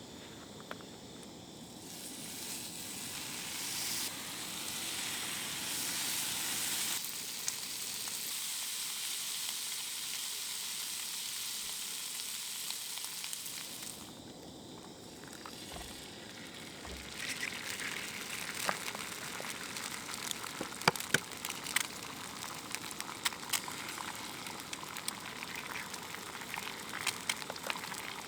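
Campfire crackling and hissing: a steady hiss, then many sharp pops and crackles in the second half.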